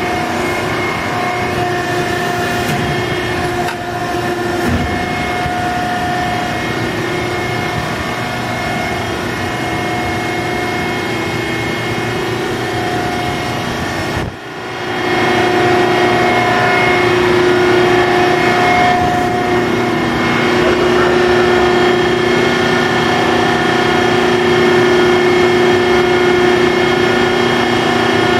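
Hydraulic pump and 12 hp motor of a 1999 Adira CNC hydraulic press brake running, a steady hum with a whine. It drops out briefly about halfway through and comes back a little louder.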